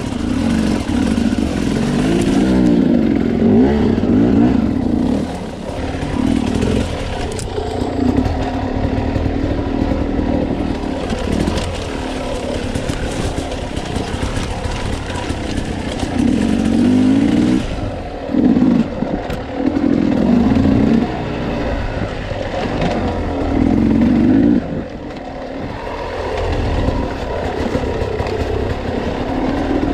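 Dirt bike engine revving up and easing off over and over as it is ridden along a rough trail. The throttle swells come every second or two.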